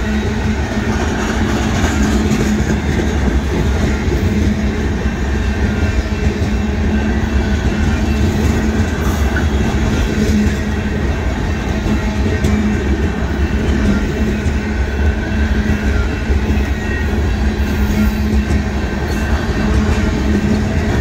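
Freight train boxcars rolling past at a grade crossing: steady, continuous noise of steel wheels on the rails, loud and unbroken.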